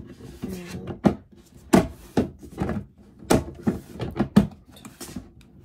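Irregular knocks and thumps from a small garbage can being unpacked and handled, the loudest nearly two seconds in.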